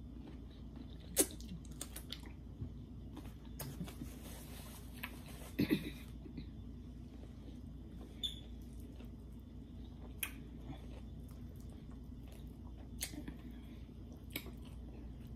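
Quiet eating sounds: a mouthful of cucumber being chewed, then a rotisserie chicken being torn apart by hand, with scattered small clicks and a brief rustle about four seconds in.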